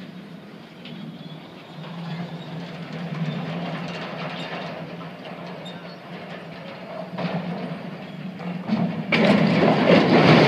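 Heavy equipment's diesel engine rumbling steadily under load as it pulls over an old steel water tower. About nine seconds in comes a loud crash as the tank and legs hit the ground, with crashing metal carrying on to the end.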